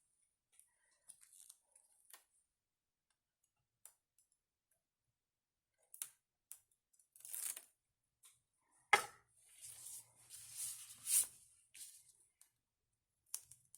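Super-sticky craft tape and card stock being handled: scattered faint clicks and paper rustles, with a longer rasping peel or tear about seven seconds in and again from about nine to eleven seconds in, where a sharp tap also sounds.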